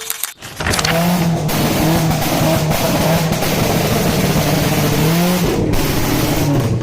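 A car engine revving hard and loud, its pitch stepping and gliding up and down, starting about half a second in.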